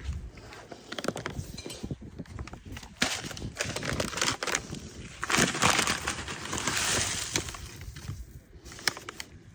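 Handling noise from working with the dropped oil filter and spilled oil: scattered clicks, knocks and clinks, with two longer stretches of rustling or crinkling, one about three seconds in and a longer one about five seconds in.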